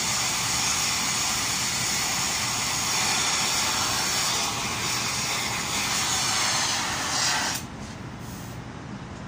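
Oxy-fuel gas torch flame hissing steadily while heating a cast iron flange, then shut off about seven and a half seconds in.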